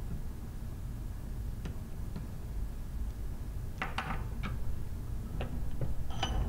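Scattered sharp metallic clicks and clinks of a torque wrench, socket and metal diaphragm plates being worked and handled on a steel bench vise, a few at first and then a quick cluster about four seconds in, with one short ringing clink near the end. A low steady hum runs underneath.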